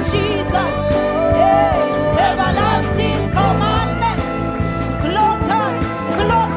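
Live gospel worship music: a woman's voice sings a wavering, gliding melodic line without clear words, over sustained chords and bass from the band.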